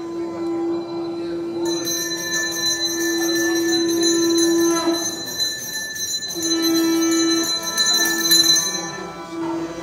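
Conch shell blown in long held notes, with short breaks, while a hand bell rings from about two seconds in until near the end, for the Sandhi Puja.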